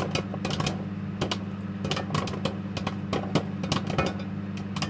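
Popcorn popping: irregular sharp pops, several a second, over a steady low hum.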